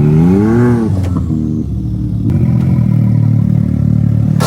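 Can-Am Maverick X3's three-cylinder engine revving up and dropping back within the first second, then running steadily under load.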